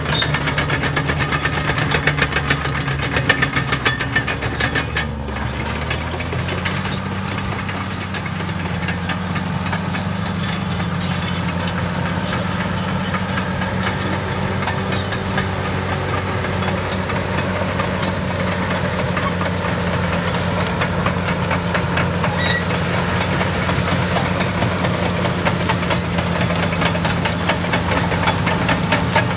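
Caterpillar D6T crawler dozer's diesel engine running steadily under load while it pushes over scrub trees. The engine note steps up in pitch about six seconds in and then holds.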